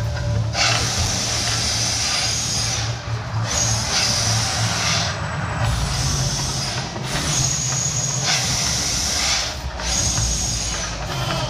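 Mirage Volcano's gas flame jets firing in about five hissing bursts of one to two seconds each, starting and stopping sharply, over a steady low rumble.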